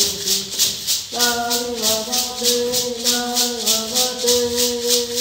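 Maracas shaken in a steady beat, about three to four shakes a second, under a melody of long held notes.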